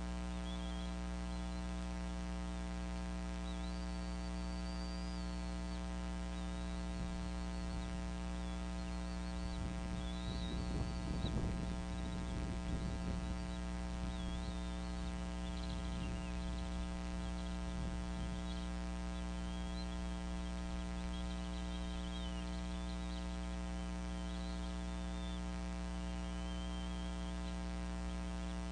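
Steady electrical mains hum from the nest camera's audio, with faint high wavering chirps throughout. About ten seconds in come a few seconds of rustling and knocking of sticks in the nest, with a couple of shorter rustles later.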